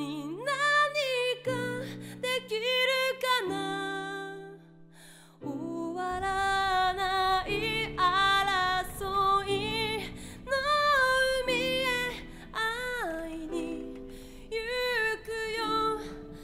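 A song: a woman singing a slow melody with vibrato over held instrumental chords. There is a brief lull about four to five seconds in, then the accompaniment comes back fuller, with a low bass under the voice.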